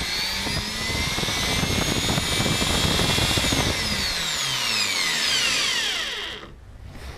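Angle grinder with a weld-repaired armature and new gearbox gears and bearings, run with no disc on: the motor's whine rises as it spins up, then about three seconds in it is switched off and coasts down, the whine falling until it stops near the end. It runs smoothly, and the repair works.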